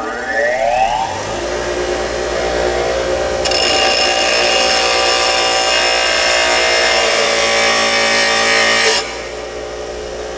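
Bench grinder motor finishing its spin-up to a steady hum, then a steel wheel stud held in locking pliers is pressed against the grinding wheel, a loud grinding from about three seconds in to near the end as the stud's shank is shaved down. The grinding stops while the grinder keeps running.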